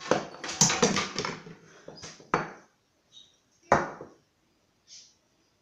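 Handling noise: a camera rubbing and knocking against a fleece top, a burst of rustles and clicks, then two sharp knocks about a second and a half apart.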